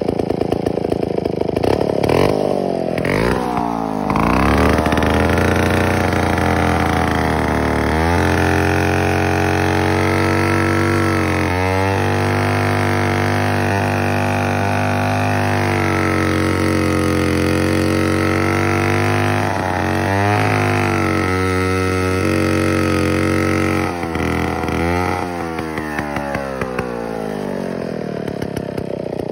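Vintage McCulloch 549 two-man chainsaw, a two-stroke, revving up and then running steadily under load as its chain cuts through a pine log. Near the end the pitch sweeps up and down as the bar comes out of the cut, and the saw drops back to a lower, quieter running note.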